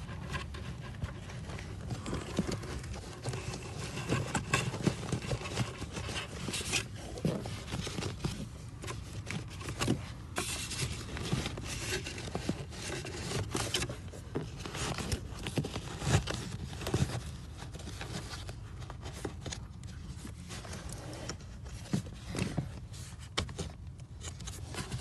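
Irregular scraping, rubbing and clicking of a cabin air filter and its plastic frame being worked into the filter housing, as its notches are pushed into place.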